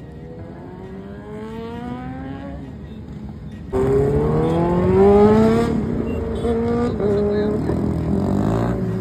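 Superbike engines accelerating hard, the pitch rising again and again through the gears. About four seconds in, the sound cuts abruptly to a louder, closer bike revving up and then holding its pitch.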